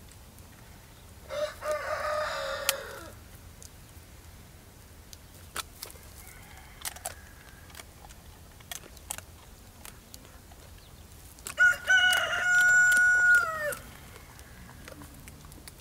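A rooster crows once, about twelve seconds in: a long, held call that drops in pitch at the very end. A shorter call comes about a second in, with scattered faint clicks between.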